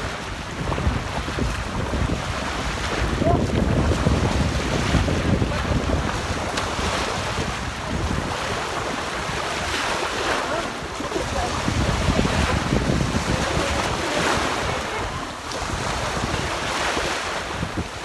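Small sea waves breaking on the shore and washing up the sand in swells that rise and ease, with wind buffeting the microphone.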